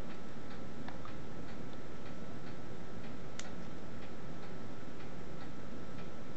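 Steady ticking, about two ticks a second, over a low steady hum and a faint thin whine, with one sharper click a little over three seconds in.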